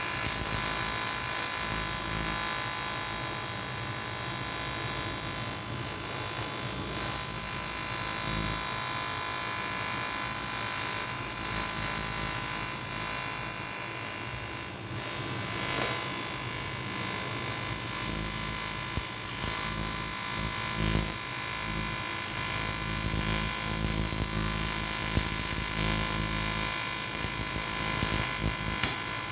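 TIG welding arc on an aluminium motorcycle cylinder block, a steady buzz made of many even tones with a strong high hiss on top, dipping briefly a couple of times.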